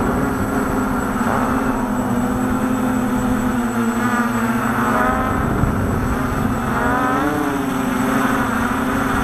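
Quadcopter drone's propellers and motors humming steadily, heard from the drone's own onboard camera. From about four seconds in, a few tones slide up and down in pitch over the hum.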